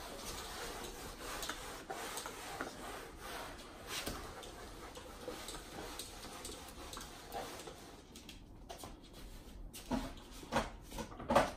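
Golden retrievers romping on a hard floor: scattered clicks and scuffles of claws and paws, with a few louder sudden sounds near the end.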